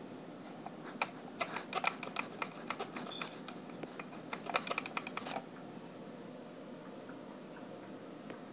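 Fast, irregular clicks and taps of hard plastic toy-car parts being handled, in a cluster from about one second in to just past five seconds.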